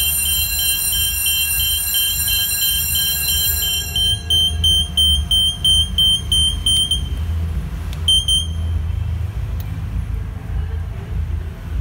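A 2-zone fire alarm control panel's alarm sounder is going off in a high-pitched electronic tone, signalling a zone 2 fire alarm. It pulses rapidly at first, then breaks into separate beeps about three a second, and stops about seven seconds in, with one short beep a second later.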